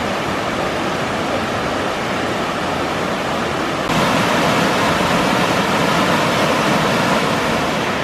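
Waterfall rushing over broad rock slabs: a steady, even rush of white water, a little louder from about four seconds in.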